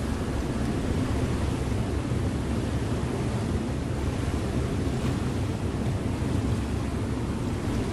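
River motor ship under way: a steady low engine drone with water rushing past the hull.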